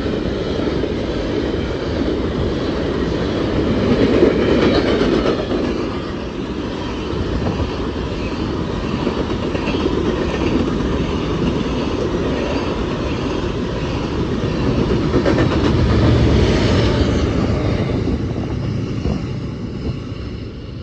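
Empty steel coal hopper cars of a long freight train rolling past at track speed, their wheels clattering steadily over the rail. A deeper rumble swells about three quarters of the way through, then the sound starts to fade near the end.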